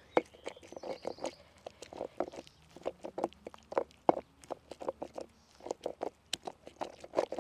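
Stone pestle crushing and grinding roasted tomatoes in a basalt molcajete: irregular knocks and scrapes of stone on stone through the wet pulp, a few a second, as the tomatoes are worked into salsa.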